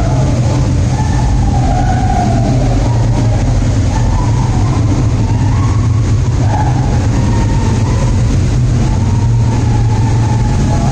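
ATV engine running steadily under way, a low drone with a faint wavering higher tone riding on top, inside a narrow rock tunnel.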